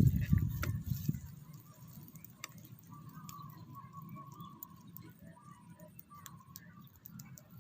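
Low rustling and knocking for about the first second, then quiet outdoor background with a faint wavering call that carries on from about three seconds in.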